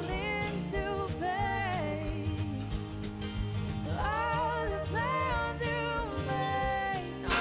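Background music: a song with a singing voice over a steady accompaniment.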